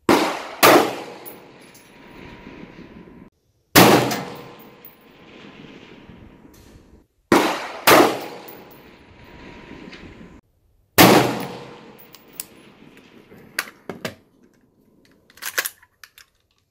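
AR-15 pistol in 5.56 with a 10.5-inch barrel firing six shots, a quick pair, a single, another quick pair and a single, each ringing out with a long echo under the range roof. Near the end come a few light clicks and knocks of the gun being handled.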